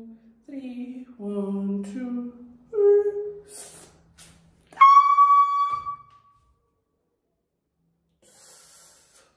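A woman's wordless humming and moaning as she braces, then a sudden high-pitched squeal of pain held for about a second, about five seconds in, as she pulls the wax off her armpit.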